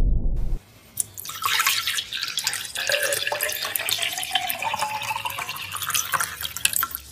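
White wine poured into a stemmed wine glass, splashing and fizzing, its pitch rising as the glass fills. The pour starts about a second in, just after the end of a low rumble that cuts off.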